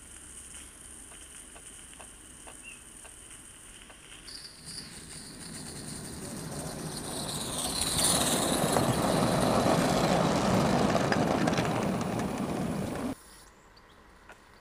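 A live-steam Gauge 1 model of an LSWR B4 tank engine running along the track toward the listener, growing louder as it draws near and passes close by. The sound cuts off suddenly about 13 seconds in.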